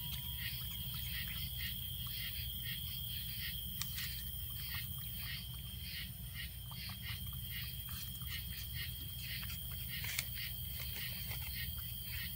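Night insects chirping in an even rhythm, about two to three chirps a second over a steady high trill, with a low steady hum beneath. A couple of sharp clicks stand out, one about four seconds in and one near the ten-second mark.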